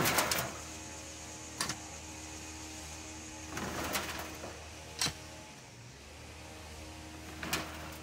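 Pitchfork scraping and dropping compost onto a wire-mesh compost sifting screen: a series of short scrapes and knocks, the loudest right at the start and another near the end, over a steady machine hum.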